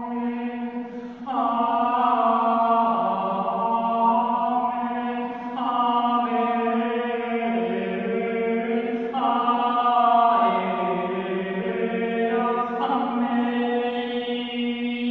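A woman's wordless, intuitive chant-like singing in a channeled 'sound language'. She holds long notes that shift pitch every few seconds, over a steady low drone.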